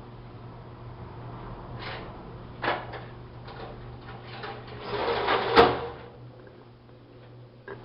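LG washing machine washing a double blanket: a steady motor hum with irregular swishing noises from the drum, loudest about five seconds in and ending with a sharp click.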